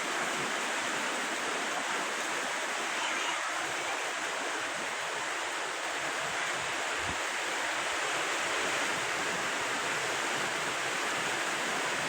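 Steady heavy rain, a dense even hiss without a break.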